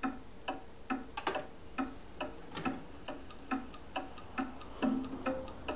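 Ticking, plucked music from a television: short, evenly spaced ticks about two a second, each carrying a brief note.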